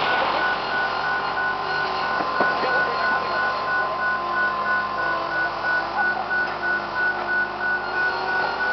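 Diesel engines of a Komatsu excavator and a bulldozer running steadily, with a thin steady whine over them.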